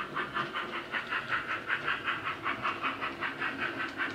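Wheeltappers DCC sound decoder in a Hornby GWR Dean Single model locomotive, playing steam exhaust chuffs through a small sugarcube speaker as the model runs. The chuffs come in a steady, even beat of about five a second.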